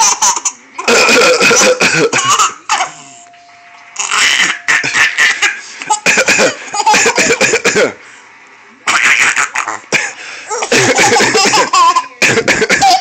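A baby laughing hard in several bouts of a second or two each, set off by short fake coughs in between.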